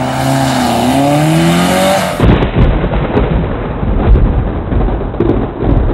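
A car engine revving up, its pitch climbing. About two seconds in it cuts to a rough, low rumble with scattered knocks.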